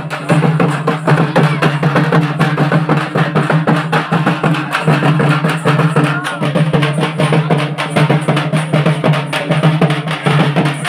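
Hand-held frame drums (dappu) being beaten together in a fast, dense, continuous rhythm, with a steady low hum underneath.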